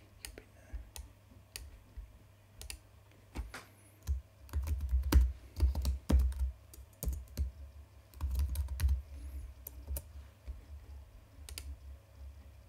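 Computer keyboard typing and mouse clicks: scattered sharp key and button clicks, with a run of low thuds from about four to six seconds in and again around eight to nine seconds in.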